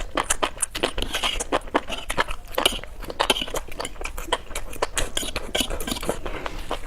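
Close-miked mukbang eating: a person biting and chewing food, a quick irregular run of crisp clicks and crunches, several a second.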